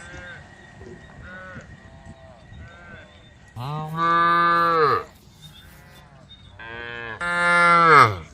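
Cattle mooing: a few faint, short moos from cows further off, then two loud, long moos, one about three and a half seconds in and one near the end that grows louder partway through.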